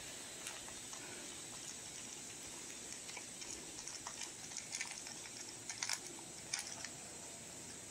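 Shetland sheepdog puppy eating dry kibble from a plastic bowl: scattered sharp crunches and clicks of kibble, most of them in the second half, over a faint steady hiss.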